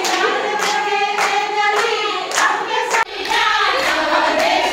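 A group of women singing a song together, clapping along in a steady beat. There is a brief break about three seconds in.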